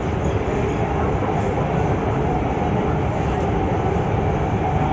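Madrid Metro Line 12 train heard from inside the passenger car while running between stations: a steady, even noise of the wheels on the rails and the moving car.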